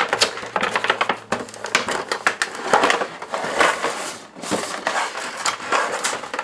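Cardboard toy box and its packaging being pried and torn open by hand: a run of irregular crackles, rips and clicks.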